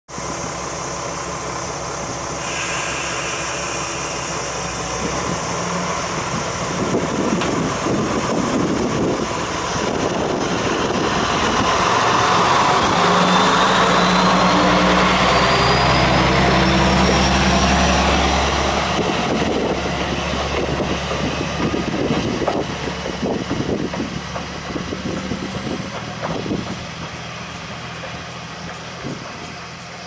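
JR West KiHa 120 diesel railcar's engine running steadily at the platform, then working harder as the railcar pulls away, loudest with a rising whine. The sound then fades as it draws off, with the wheels clicking over the rail joints.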